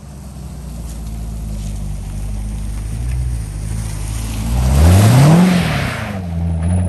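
A Corvette Grand Sport's 6.2-litre LS3 V8 drives past under acceleration. The engine note climbs in pitch and is loudest about five seconds in as the car goes by, then drops as it pulls away.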